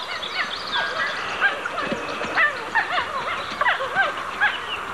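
Wolf pups whining and squealing: many short, rising-and-falling cries, several a second and overlapping.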